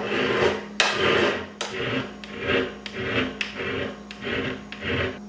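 Hand file rasping back and forth across the curved edge of an aluminum blank in steady strokes, about two a second.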